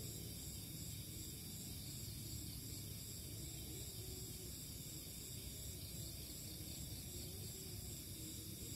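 Night insects chirring steadily, a high pulsing trill, over a low steady rumble.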